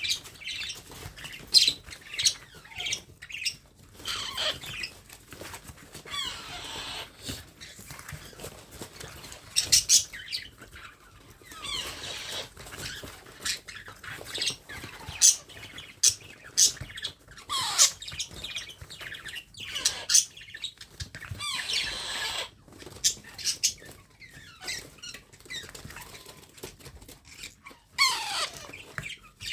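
Baby parrot squawking again and again while being fed: shrill calls, several sliding down in pitch, with short clicks and rustles between them.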